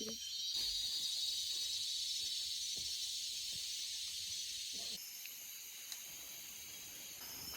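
Tropical rainforest insect chorus: a steady, high-pitched shrill hiss with a few held tones. Its pitch and loudness change abruptly about half a second in and again around five seconds.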